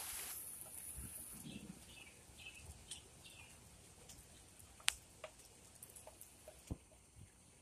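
Light rain with a hiss that fades out over the first second. A bird chirps a quick run of short calls, and a few sharp clicks stand out, the loudest two in the second half.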